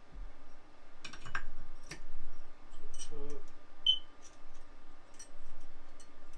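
Scattered light metal clicks and clinks of clutch parts, washers and the clutch basket, being handled and slid onto the shaft of a Honda CRF150R engine, with one short ringing ping about four seconds in.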